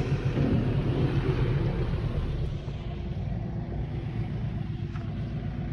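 Steady low rumble of a moving road vehicle, easing a little about halfway through.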